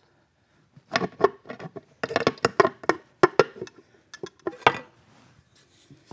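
A quick series of sharp metallic clinks and taps as small motorcycle engine parts are handled and set down on a workbench.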